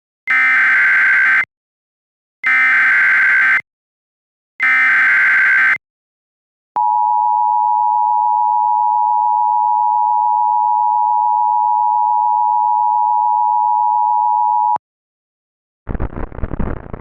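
Emergency Alert System broadcast tones: three one-second bursts of harsh, screeching SAME header data, then the steady two-tone attention signal held for about eight seconds, which cuts off sharply.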